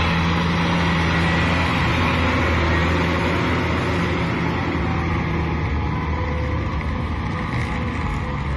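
Kubota M6040SU tractor's diesel engine running steadily under load while it pulls a rotary tiller through wet paddy mud, with the churning of tyres and tiller in the mud. It fades slightly in the second half as the tractor moves away.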